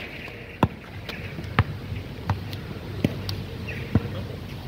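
A ball bounced repeatedly on an asphalt court: five thuds, a little under a second apart.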